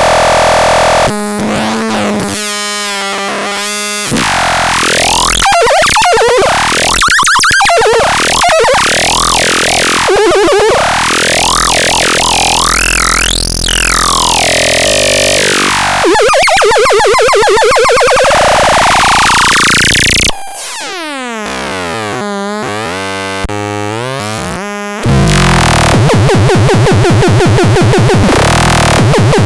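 Grove Machine C 202 electronic sound machine making harsh synthesizer noises that change every few seconds: wobbling pitch glides, long rising and falling sweeps, and fast pulsing near the end.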